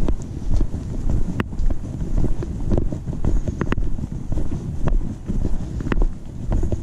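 Footsteps of a hiker walking a dirt trail, heard through a GoPro clipped to a backpack chest strap: a low rumble on the microphone that bumps about twice a second as the camera jolts with each step, with a few sharp clicks.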